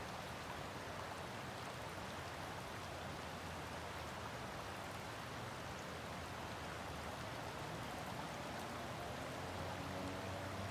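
Steady hiss of water. A faint low hum comes in near the end.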